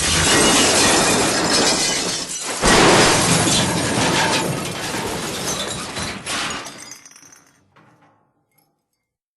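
Cartoon sound effect of glass shattering in a big crash, with a second, louder crash about two and a half seconds in, the clatter of falling pieces trailing off and dying away near the end.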